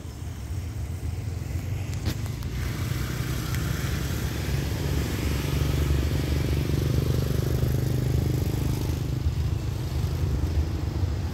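DD51 diesel-hydraulic locomotive approaching at the head of a ballast train: a steady low engine drone that grows louder over the first half and then holds. A couple of sharp clicks come about two seconds in.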